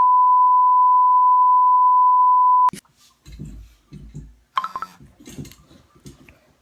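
A steady, high, single-pitched bleep tone, cut off abruptly a little under three seconds in. Faint clicks and rustling noises follow.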